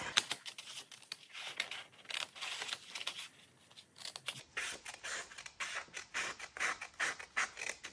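Scissors snipping through a thin coffee-dyed copy-paper page, a steady run of short cuts several to the second with a brief pause about three and a half seconds in.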